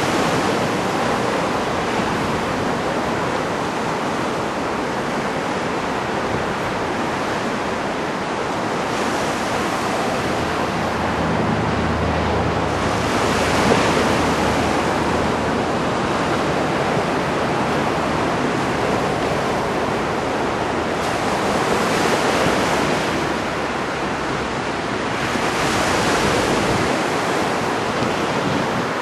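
Heavy ocean surf from a big typhoon swell, a continuous rush of breaking waves that swells and fades several times. Strong wind buffets the microphone, with a low rumble a little before the middle.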